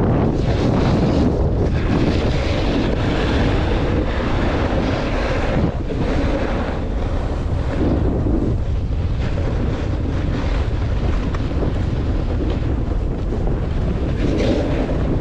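Wind buffeting the microphone: a steady, loud rush of noise, heaviest in the low range.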